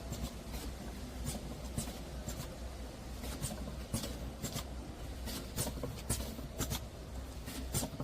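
Vertical three-side-seal packaging machine running, with a steady low hum and short sharp clicks about twice a second.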